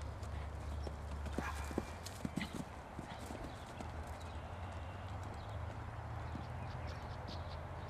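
Hoofbeats of a Welsh pony moving on the ground, over a steady low rumble, with a few sharper knocks about two seconds in.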